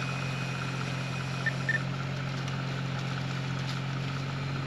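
Jeep engine running steadily at low revs while the Jeep is spotted backing up around an obstacle on an off-road trail. Two short high chirps come about a second and a half in.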